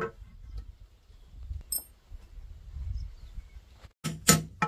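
Two sharp metal strikes near the end: the back of a machete blade hammering a nail held on a thin metal strip laid on a wooden block, punching a hole in the strip. Before them, a low rumble and a brief high chirp about a third of the way in.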